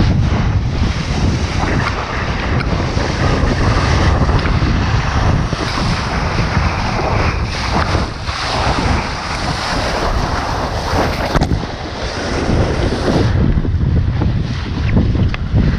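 Strong wind buffeting the microphone as a rumble, over the steady rush and hiss of water streaming past a Lightning sailboat's hull at speed.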